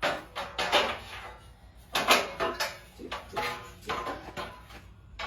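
Groceries and their packaging being rummaged through and handled, a run of irregular crinkles and small knocks several times a second.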